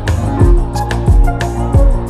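Background music with a steady beat: deep kick drum thumps that drop in pitch, sharp snare hits, and held melodic notes above.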